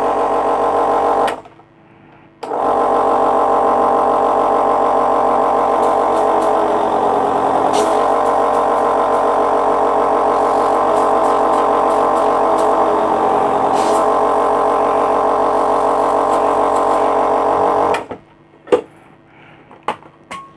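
Compressor nebulizer's compressor running with a steady hum after repair, with its top cover back on: the machine is working again. It cuts out about a second and a half in, starts again about a second later, and stops near the end, followed by a few clicks.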